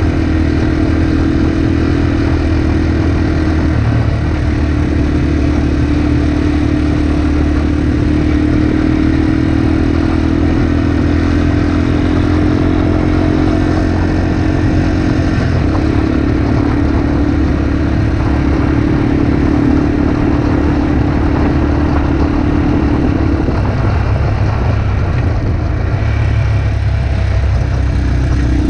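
Yamaha TW200 single-cylinder four-stroke motorcycle engine running steadily while riding on a gravel road. The steady engine note breaks briefly twice and shifts lower about three-quarters of the way through.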